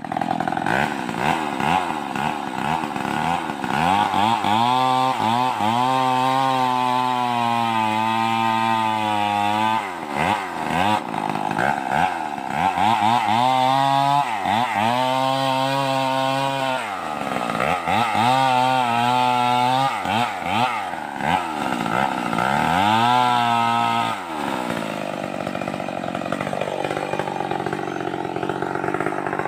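Stihl 038 two-stroke chainsaw engine revving up and dropping back again and again. It holds high revs for several seconds at a time, with a lower, steadier stretch near the end.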